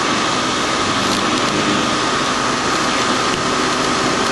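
CNC milling machine cutting a finishing pass on impeller blades with a radiused end mill: a steady machining noise with a faint high whine held throughout.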